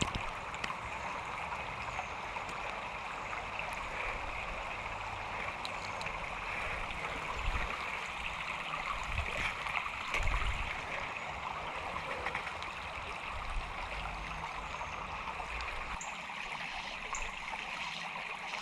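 Creek water running and trickling, a steady rushing murmur, with a few brief low rumbles on the microphone.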